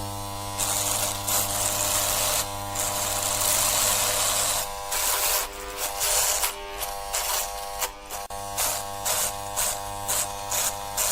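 Electric shaver running with a steady buzz, overlaid by bursts of brighter rasping noise that come and go, quicker in the second half at about two a second.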